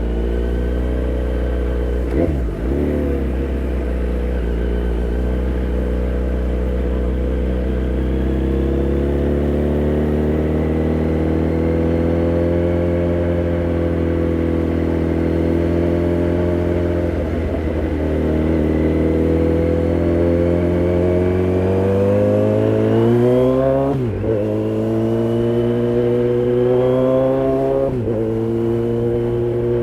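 Kawasaki Z900's inline-four engine through a DTMOTO aftermarket exhaust, running steadily and then pulling with slowly rising pitch; near the end the pitch drops sharply twice and climbs again, as on upshifts under acceleration.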